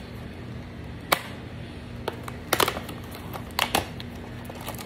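A few sharp clicks and taps of plastic and cardboard packaging being handled and pulled open around a hair brush, the sharpest about a second in and small clusters of clicks later.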